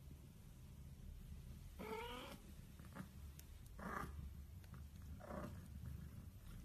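Newborn kitten mewing: three short cries, about two, four and five and a half seconds in, over a faint steady low purr.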